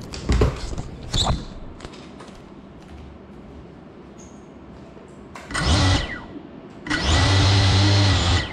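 GEPRC FPV quadcopter's brushless motors revving briefly while the crashed drone sits on the floor: two short blips, then a burst that winds down in pitch, then a steady high whir for about a second and a half that cuts off sharply.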